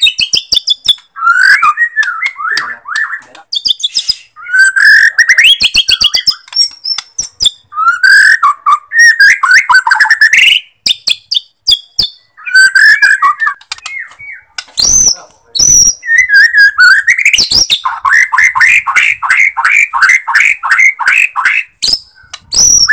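White-rumped shama singing a loud, varied song of whistled phrases that glide up and down, mixed with sharp clicking notes, with a fast rattling series of about four notes a second near the end.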